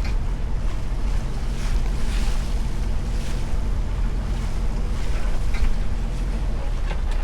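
A boat engine runs steadily under a constant hiss of wind and water, with a few brief, sharper sounds.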